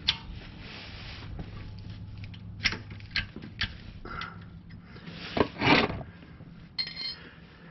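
A 15 mm wrench clinking on the oil pan drain plug as it is broken loose: a few sharp metal clicks, then a louder scrape about five and a half seconds in.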